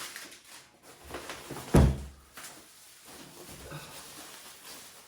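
Handling noise as kit parts are unpacked from their boxes and padding: rustling and light knocks, with one heavy thump a little under two seconds in as something is set down.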